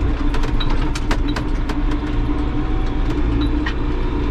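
Tractor engine running steadily under load while pulling a disc harrow across stubble, heard from inside the cab. Sharp clicks and rattles come scattered throughout.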